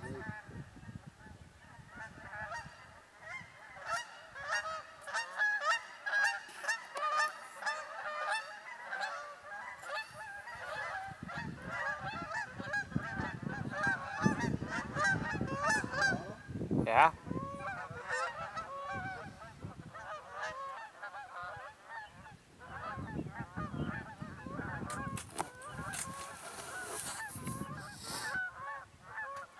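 A flock of geese honking, many overlapping calls one after another without a break.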